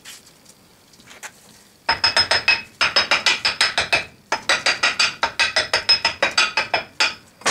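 Rapid metal-on-metal tapping on a sand-casting molding flask: quick runs of sharp, ringing strikes about eight or nine a second, starting about two seconds in and broken by two short pauses.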